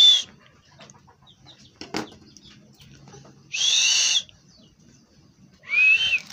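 Three short, high squeaks, each a breathy hiss with a whistling pitch in it. One fades just at the start, and the others come about three and a half and six seconds in.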